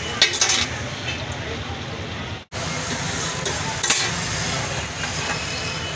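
Egg and shami patties sizzling steadily on a flat street-food griddle, with a few sharp clicks of a metal spatula against the plate.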